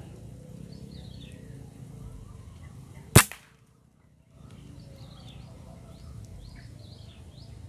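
A single sharp shot from a Bocap Predator PCP air rifle about three seconds in, over a background of small birds chirping. The sound drops out for about a second just after the shot, then the birdsong resumes.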